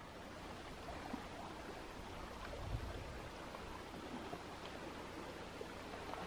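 Faint, steady outdoor hiss with no clear source, marked by a few faint ticks and a soft low swell nearly three seconds in.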